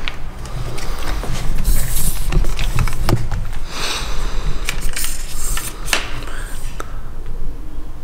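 Hurried movement: irregular rustling and scraping with scattered knocks and clicks, over a steady low rumble.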